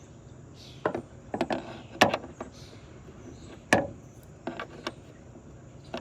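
Scattered short clicks and knocks of a wrench and hands working the stainless nut on a T1N Sprinter's windshield wiper pivot housing, the sharpest knocks about two seconds in and just before four seconds.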